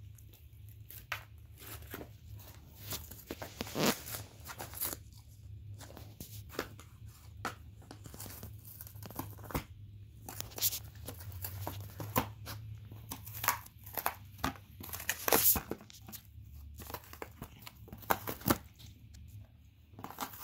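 A dog tearing and chewing cardboard in an irregular series of rips and crunches, the loudest about four seconds in and again about fifteen seconds in.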